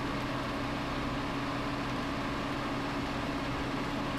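Steady background hum with an even hiss, unchanging throughout and without any distinct clicks or knocks.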